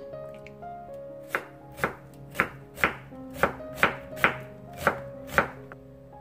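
Kitchen knife slicing onion on a wooden cutting board: about nine sharp chops, roughly two a second, starting about a second in.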